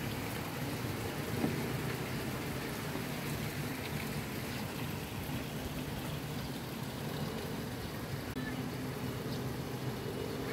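Steady rain falling, an even wash of water noise without breaks.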